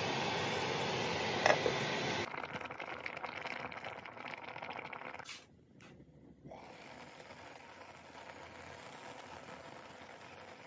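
A steel pot lid lifted with one clink over a steady rushing background noise; then, more quietly, a faint steady simmer from the pot of chicken curry cooking on the stove.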